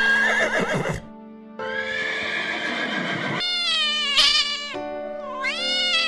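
Horse whinnying in several wavering calls, the first high and falling in pitch, over background music. Near the end a long pitched call dips and rises, fitting a cat meowing.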